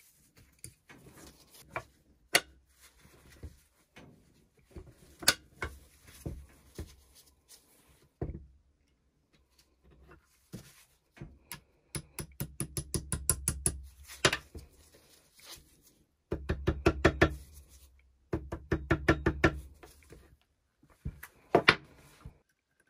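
Small hammer striking the metal axle pin of a steel pulley block to seat it, in single sharp knocks and in runs of quick light taps, about three runs of a second or two each in the second half.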